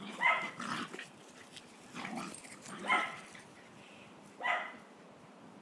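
Two dogs play-wrestling, with about four short barks spread through the few seconds.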